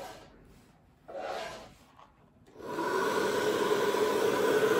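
A handheld hair dryer switches on about two and a half seconds in and runs steadily, with a whir and a hum in it, blowing wet acrylic paint across the surface in a Dutch pour. Before it there is a short rubbing sound of handling.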